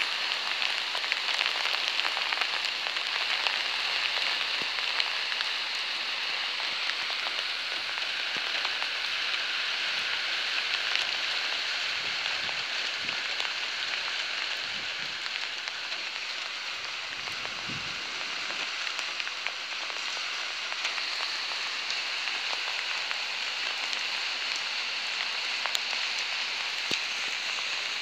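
Steady rain falling on a car, a dense even hiss of drops with faint individual ticks.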